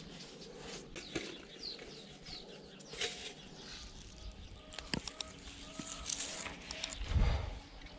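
Birds chirping and calling, short quick chirps in the first half and brief pitched calls later, with a few light knocks and a short low rumble near the end.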